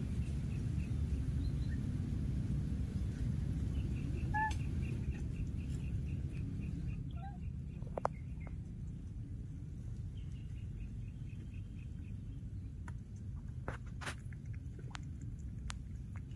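Outdoor ambience in marshy grassland: a steady low rumble that eases about halfway through, a faint rhythmic chirping now and then, a couple of short high chirps about four seconds in, and a few light clicks in the second half.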